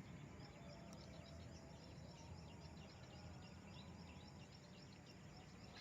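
Near silence: faint outdoor background with a faint, rapid high chirping that keeps on throughout.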